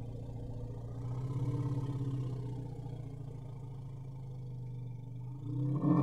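Elephant growling: one long, low rumble that swells about a second and a half in, then grows louder and higher near the end before breaking off.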